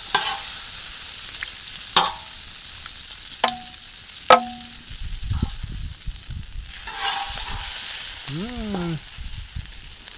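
Moose meat, juniper and onions sizzling in butter in a hot pan. A utensil knocks sharply on the pan four times in the first half, each with a short ring, and the sizzle swells briefly about three quarters of the way through.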